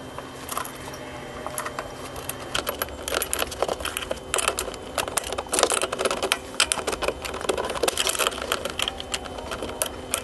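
Irregular metallic clicking and rattling as a disc horn's bracket, bolts and nuts are handled and fitted against a golf cart's steel frame, growing busier from about two and a half seconds in.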